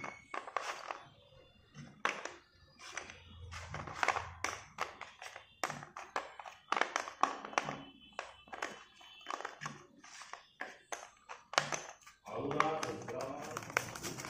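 Sticks of school chalk clicking and tapping against each other and the plastic tub as they are handled, in quick irregular clicks. About twelve seconds in, a cardboard chalk box is torn open with a denser scratchy tearing.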